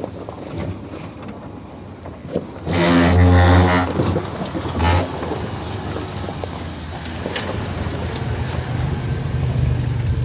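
Toyota Land Cruiser 90's engine revving in one strong burst about three seconds in, then running steadily under load and growing louder near the end as the SUV passes close by.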